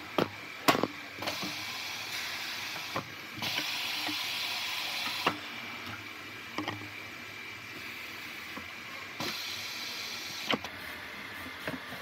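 Tire changing machine being worked: a series of sharp metal clanks and knocks, with three spells of hissing that each last a second or two.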